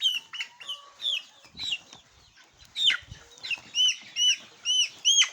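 Six-week-old chickens calling, a busy run of short high arched peeps and cheeps, settling in the last couple of seconds into one bird peeping about twice a second.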